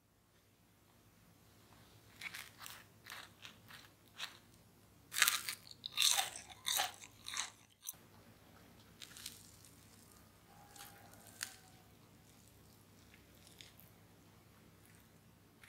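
Crisp pan-fried sweet potato cakes crunching in a quick run of sharp crunches, loudest about five to seven seconds in, then fading to faint, scattered crackles.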